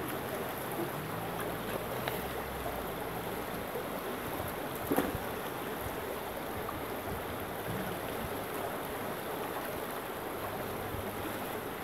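Shallow stream rushing steadily over rocks, with a short knock about five seconds in.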